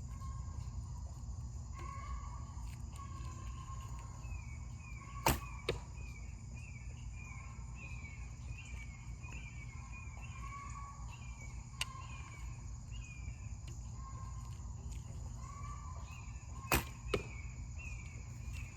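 A 55-pound Bear Montana longbow shooting three heavy 605-grain arrows. Each release is a short sharp snap of the string. Twice it is followed about a third of a second later by a second knock, the arrow striking the target.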